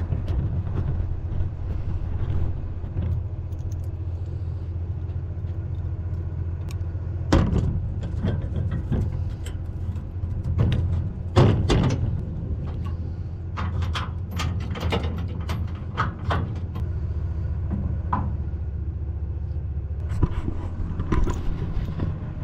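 Vehicle engine idling steadily with a low hum, with a few sharp knocks and a run of clicks and rattles in the middle.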